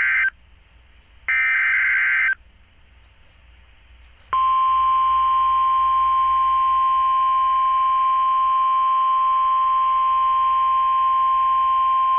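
Emergency Alert System signal on NOAA Weather Radio. First comes the end of one SAME header data burst and then a full one, each a harsh, buzzing warble about a second long. After a two-second pause, the steady single-pitched 1050 Hz weather radio warning alarm tone starts about four seconds in and holds.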